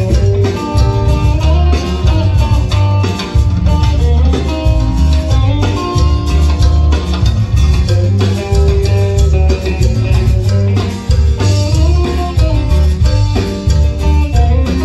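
Live band playing dance music, loud and continuous: a heavy bass and drum beat with guitar and a melody line of held notes that step up and down.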